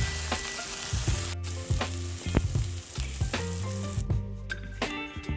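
Food sizzling in a frying pan, a steady hiss that cuts off suddenly about four seconds in, under background music with a steady beat.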